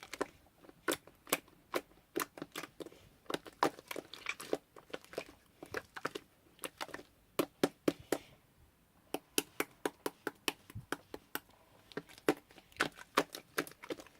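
Pink slime being squeezed and pressed by hand, giving rapid, irregular sharp clicks and pops, several a second, with a short lull about eight seconds in.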